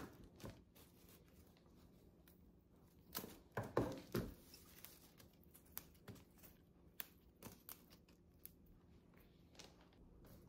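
Faint rustling and crinkling of cut flower stems, leaves and tissue paper being handled, with a louder cluster of rustles and knocks a little under four seconds in and scattered small clicks after it.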